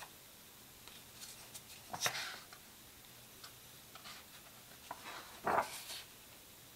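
Paper pages of a record's photo booklet being handled and turned: a few short rustles and flaps, the loudest about two seconds in and again about five and a half seconds in.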